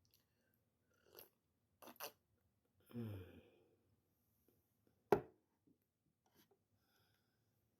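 Quiet mouth sounds of sipping hot coffee, with a short satisfied hum about three seconds in. One sharp knock, the loudest sound, comes about five seconds in.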